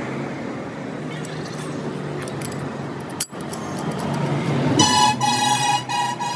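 Steady background street and traffic noise, with one sharp click a little past three seconds in. Near the end a vehicle horn sounds, a loud steady note that breaks off briefly a couple of times.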